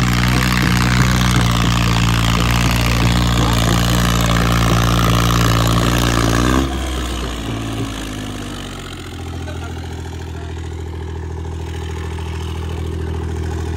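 Diesel tractor engine running hard and steady under load as it drags a disc plough through the soil. About six and a half seconds in it eases off abruptly, and it settles to a lower, quieter idle.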